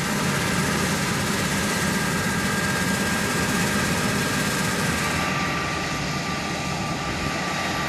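CLAAS Lexion combine harvester running steadily at work: a low engine drone with a steady high whine over it.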